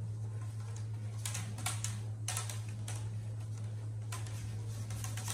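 Two plastic hula hoops spinning around a child's waist, with irregular clicks and clatters in small clusters, over a steady low hum.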